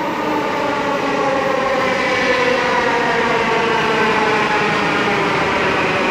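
Delhi Metro train pulling into an elevated station as it passes close by. Its traction motors whine in several tones that fall steadily in pitch as it slows, over the rumble of wheels on rail, growing louder as the cars pass.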